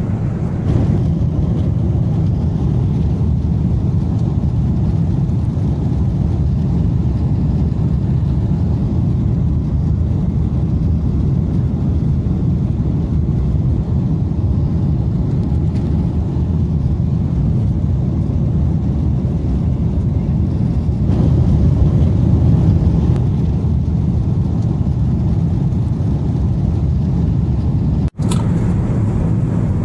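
Steady cabin noise of a Boeing 777-300ER: an even, low rumble of engines and airflow, with a momentary dropout and click near the end.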